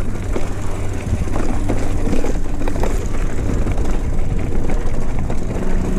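Wind rush and tyre rumble from a mountain bike rolling down a dirt trail, a steady low roar on an action-camera microphone. A steady low hum sets in near the end.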